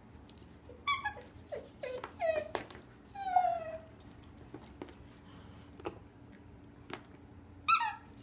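A dog whimpering and crying in a string of short, high cries, with a longer falling whine about three seconds in and the loudest cry near the end, as she mouths a squeaky toy.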